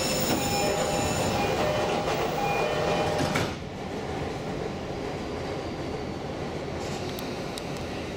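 Tokaido Line commuter train running on the track, heard from behind the cab. For the first three and a half seconds several steady high tones ring over the running noise. They cut off suddenly, leaving a quieter steady running rumble with a few light clicks near the end.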